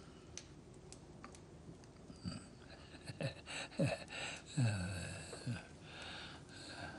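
A man sipping noisily from a small bowl, with short slurps and low, falling grunts and sighs between sips, starting about two seconds in.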